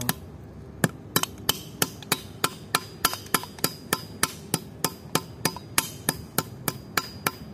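Hammer beating aluminium connector sleeves onto cable cores against a metal pipe used as an anvil: sharp, even blows about three a second, starting about a second in. The sleeves are being crimped by hammering because no crimping tool is at hand.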